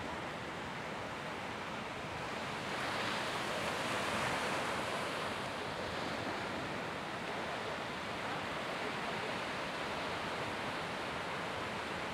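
Ocean surf breaking and washing in a steady rush, swelling louder for a couple of seconds about three seconds in.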